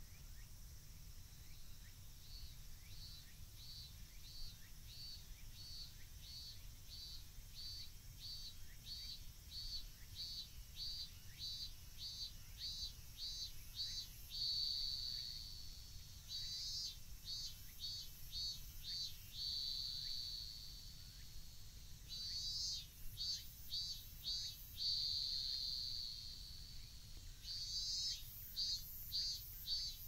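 Cicada singing: a high, rhythmic pulsing phrase of about two pulses a second that quickens, broken by long steady buzzes about halfway through and several more times, growing louder toward the end.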